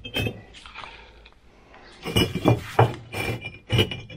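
Refractory firebricks being set down and shifted against one another: a knock near the start, then a run of hard, clinking knocks in the last two seconds.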